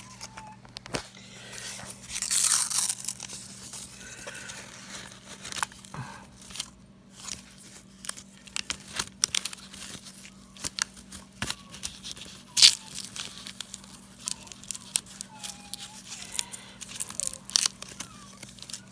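Paper wrapper of a roll of half dollars crinkling and tearing, loudest about two seconds in, then scattered sharp clicks of the coins being handled.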